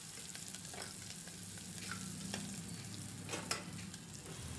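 Chopped onions, green chillies and ginger paste sizzling in hot oil in a pressure cooker pot, with a spatula stirring and scraping against the pot a few times; the loudest scrape comes about three and a half seconds in.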